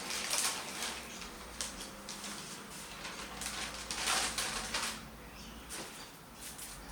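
Packaging rustling and crinkling as the wigs are handled during unboxing, in irregular bursts, loudest near the start and again around four seconds in.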